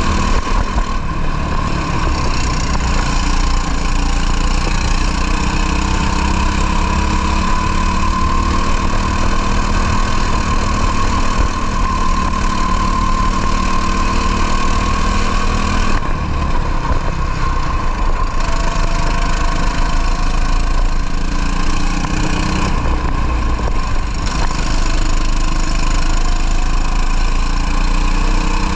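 Racing kart engine running hard at race pace, its pitch rising and falling slowly as it climbs and drops through the revs. There are brief dips about 16 and 23 seconds in, where the throttle is lifted.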